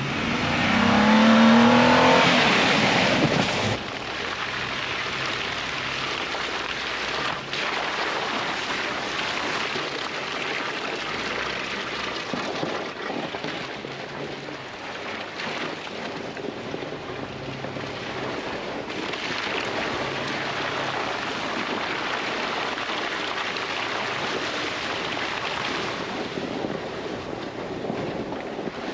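A 4x4's engine revving up for about four seconds, then a sudden change to a steady rush of tyre and wind noise as the vehicle drives on over a snowy trail.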